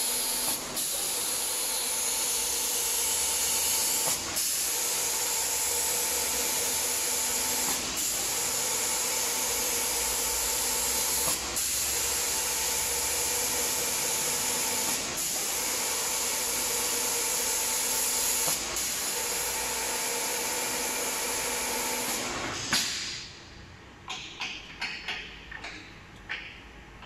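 Automatic door spray-painting machine's spray guns hissing steadily as they atomize paint over the door, over a steady machine hum, with the hiss dipping briefly about every three and a half seconds. About 23 seconds in the spraying stops and a series of clunks and rattles follows as the machine's flipper turns the door over.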